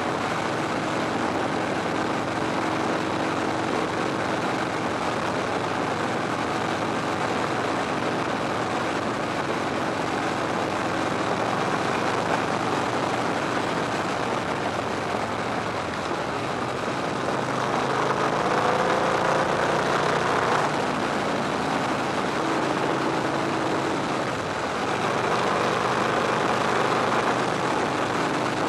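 Victory Hammer's V-twin engine running under way, mixed with steady wind rush on the tank-mounted microphone. About two-thirds of the way in the engine pitch rises and it grows louder as the bike accelerates, then settles.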